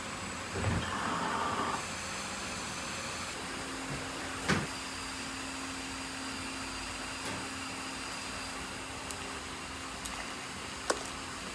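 Steady mechanical hum with a brief rushing noise about a second in, one knock about four and a half seconds in, and a sharp click near the end.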